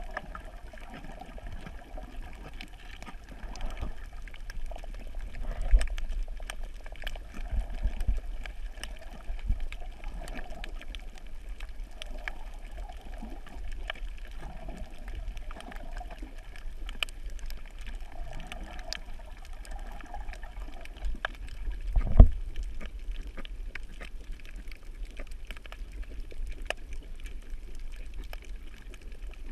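Underwater sound picked up by a camera held below the surface over a coral reef: a low, muffled rumble of water with many faint scattered clicks. A louder thump comes about three quarters of the way through.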